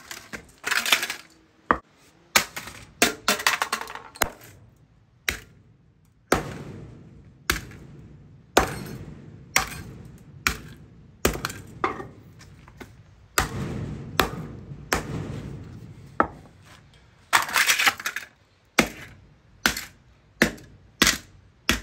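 A sledgehammer strikes a plastic CenturyLink internet box again and again, about twenty blows at an uneven pace. The blows crack the plastic casing and send broken pieces rattling.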